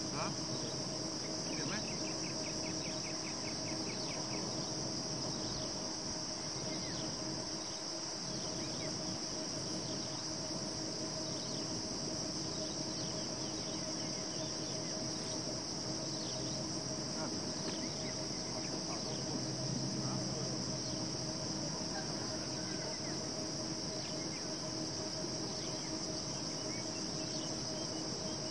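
Steady, high-pitched drone of an insect chorus, with faint short chirps over it.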